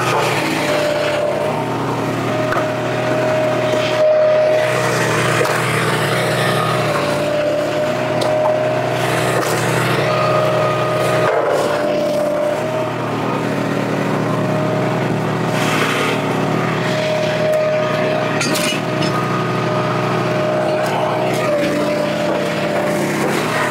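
Gas engine of a Wolfe Ridge 35 HO hydraulic log splitter running steadily while ash rounds are split, with a higher tone that comes and goes in stretches of a few seconds.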